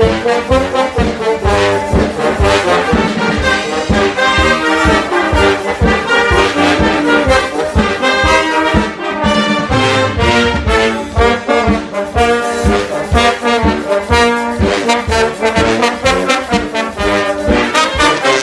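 Military brass band playing: trombones, trumpets and tubas over a steady beat.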